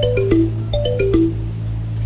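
Background music: a descending melody of plucked, marimba-like notes over a held bass note.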